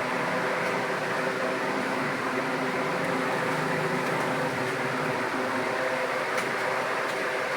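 Faint computer-keyboard key clicks under a steady mechanical hum.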